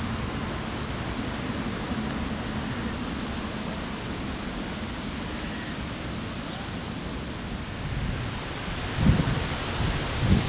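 Wind buffeting the microphone: a steady low rumbling hiss, with a couple of louder gusts near the end.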